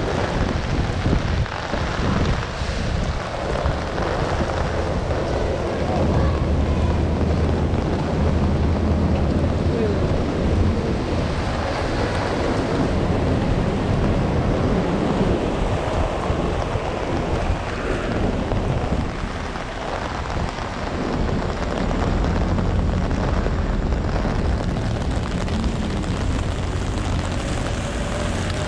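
Strong wind and heavy rain of a nor'easter storm, with wind buffeting the action camera's microphone into a steady low rumble under the hiss of the rain.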